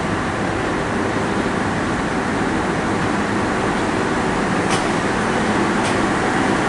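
Rangpur Express passenger train running with a steady rumble, with a couple of sharp clicks late on.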